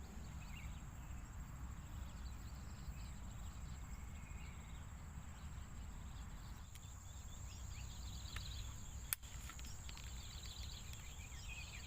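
Quiet outdoor ambience: a steady high insect drone over a low rumble, with faint bird chirps in the second half and a single sharp click about nine seconds in.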